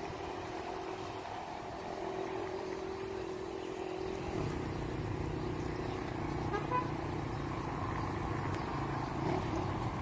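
Road traffic: a motor vehicle running past, with a steady held tone for the first few seconds, then a low engine rumble from about four seconds in.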